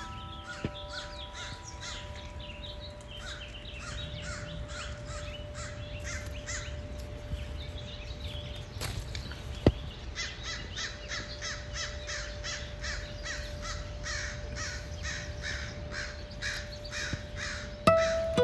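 A bird calling harshly over and over, about three calls a second, with a short break around the middle, over a faint steady tone. There is one sharp click about ten seconds in.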